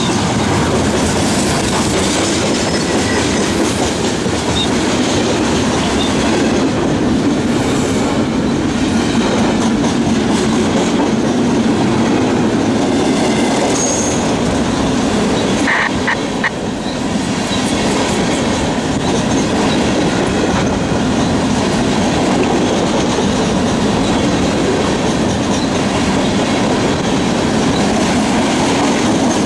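Loaded freight cars of a long mixed manifest train rolling steadily past close by: a continuous rumble of steel wheels on rail with rhythmic clickety-clack, and a brief high wheel squeal about halfway through.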